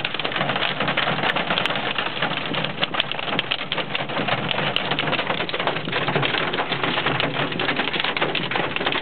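Hail and rain drumming on a car's roof and windshield, heard from inside the cabin: a dense, rapid clatter of small hits that keeps on without a break.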